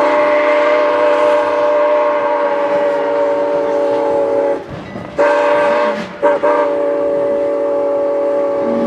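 Steam whistle of CN 89, a steam locomotive, sounding a chord of several tones at once: one long blast, then a short blast, then another long blast starting about six seconds in.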